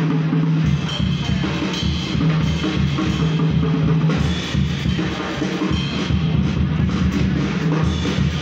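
Live jazz band playing: a drum kit with bass drum and cymbals keeping time under an upright double bass line.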